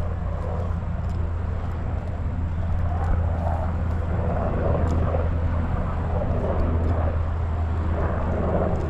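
A steady low drone, with soft footsteps and rustling as someone walks over grass and sand on a dirt track.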